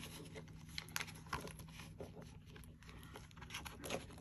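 Faint rustling and crinkling of paper dollar bills and a clear plastic zipper pouch being handled, with a few soft clicks scattered through.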